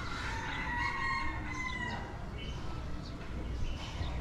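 A rooster crowing: one long call in the first two seconds, over a steady low rumble.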